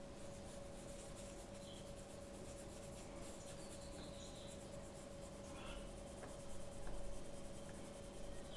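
Faint scratching of a paintbrush spreading paint across paper in short strokes, a little louder about seven seconds in, over a faint steady hum.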